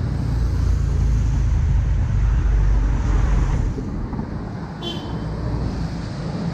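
Street traffic: a low engine rumble from a vehicle passing close by, loudest over the first few seconds, then easing. A short high chirp sounds just before five seconds in.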